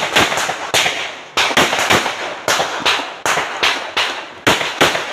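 Handgun fired rapidly during a practical shooting stage: well over a dozen sharp shots in quick strings of two to four, with short pauses between strings, each shot followed by a brief echo.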